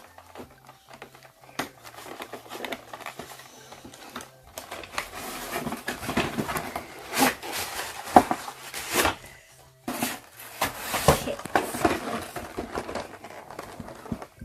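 A toy's cardboard box and plastic packaging being handled and opened: irregular rustling and crinkling with scattered taps and clicks, louder in the second half.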